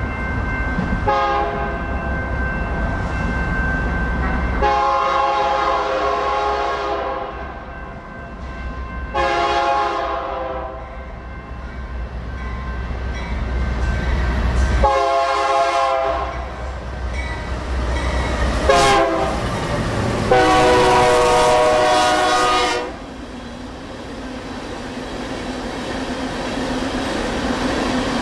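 BNSF diesel freight locomotive sounding its air horn in a series of long and short blasts, the longest about two and a half seconds, over the low rumble of the train. After the last blast the train's steady running noise continues.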